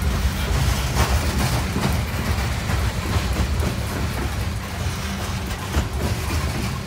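Coal train's open-top hopper cars rolling past close by: a steady low rumble of steel wheels on rail, broken by irregular clicks as the wheels pass over rail joints.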